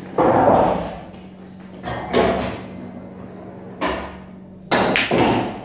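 Clunks and rustling from a person moving right by the microphone, then near the end the sharp clack of a pool cue striking the cue ball and pool balls knocking together.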